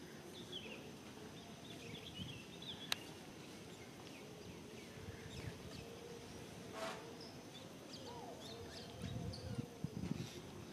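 Outdoor tree-canopy ambience: scattered short bird chirps over a steady high insect whine, with one sharp click about three seconds in and low rumbling bumps near the end.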